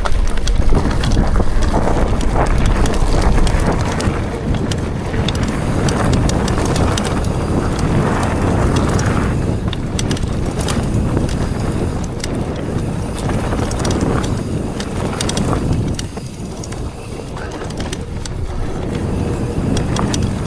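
Mountain bike being ridden fast downhill over rough ground: tyres rumbling, with many small knocks and rattles from the bike and wind buffeting the microphone.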